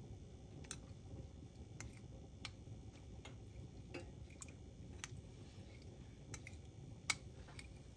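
Metal spoon clinking against a ceramic bowl while cornstarch slurry is stirred: light, irregular clicks about once a second, the loudest near the end, over a faint low hum.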